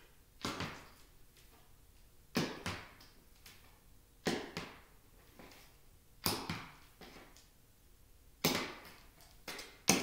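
Metal taps on loafers clicking on a hardwood floor with slow walking steps, each step a sharp tap quickly followed by a second, about one step every two seconds.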